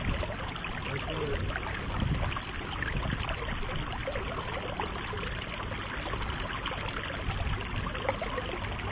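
Flowing river water: a steady rush and trickle.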